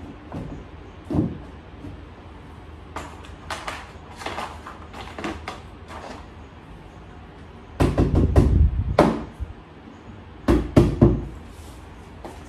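Knocks and thumps of white laminated panels and dividers of a flat-pack cube shelving unit being fitted and pressed together, with light taps and clicks for a few seconds, then two heavier bouts of thumping about eight and ten and a half seconds in.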